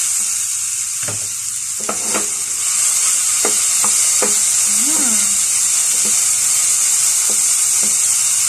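Diced vegetables sizzling in a hot frying pan while a wooden spatula stirs them, with a steady frying hiss and irregular scrapes and taps of the spatula against the pan.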